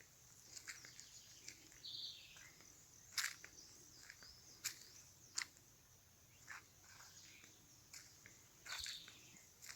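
Several birds chirping and calling faintly, with scattered short high-pitched chirps and a brief buzzy call twice.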